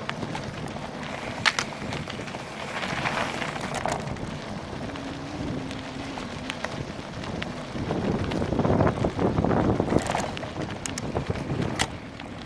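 Wind buffeting a bicycle-mounted camera's microphone while riding into a headwind, with scattered clicks and rattles from the bike on a rough trail. A louder stretch of rumbling comes about two thirds of the way through.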